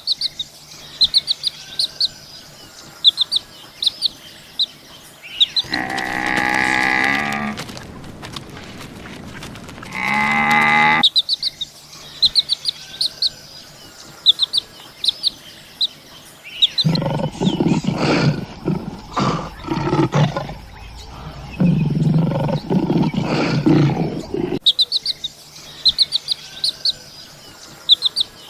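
Animal calls over a background of repeated bird chirping: two drawn-out pitched calls about a third of the way in, then a long stretch of rough, rasping calls lasting several seconds later on.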